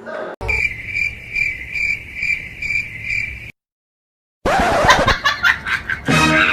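Cricket chirping as a cartoon sound effect, an even rhythm of about two and a half chirps a second that cuts off suddenly. After a second of silence comes a quick run of clicks and knocks, and music starts near the end.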